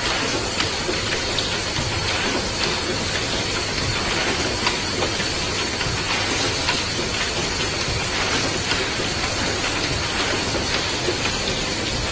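Automatic rotary perfume bottle filler running: a steady hiss with a faint high whine, and light irregular clicks from its pneumatic cylinders and indexing turntable.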